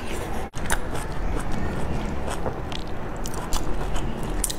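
Eating sounds: biting into and chewing a sauce-dipped pan-fried dumpling, with many short wet mouth clicks and a brief break about half a second in.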